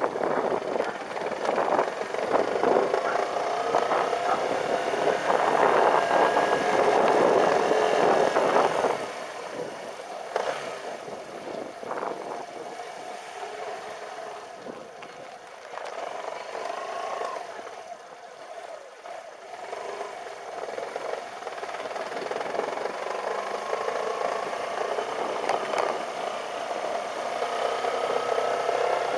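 Motorcycle engine running as the bike is ridden, its pitch rising and falling with the throttle. It is loud for the first third, quieter through the middle, and builds again toward the end.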